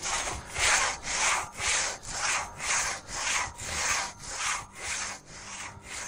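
Two-man falling crosscut saw worked back and forth through a standing tree trunk by two sawyers, its teeth rasping through the wood in a steady rhythm of about two strokes a second.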